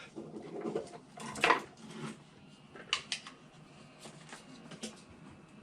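Small hand tools clinking and tapping on a workbench during fine soldering work, a string of light clicks with the sharpest about one and a half seconds in.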